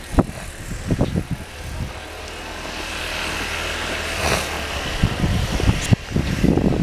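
A motor vehicle passing by: a steady low engine hum with road noise that builds to a peak about four seconds in, then eases off. A few short knocks sound near the start and again around six seconds in.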